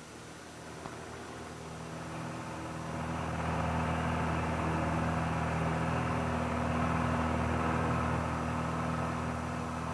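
Light single-engine airplane, a Piper PA-28 Cherokee, droning steadily in flight, engine and propeller together. It is fainter at first, grows louder about three seconds in, then holds an even pitch.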